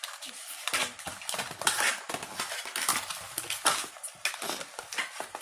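Toy packaging being handled and opened: plastic and cardboard crinkling and rustling in irregular bursts, with small clicks and snaps.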